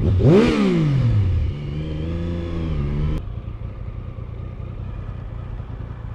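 Triumph Sprint ST's 955cc three-cylinder motorcycle engine revving up sharply, then falling away as the throttle closes. It holds a steady note for a second or two, which stops abruptly, leaving a low idling rumble.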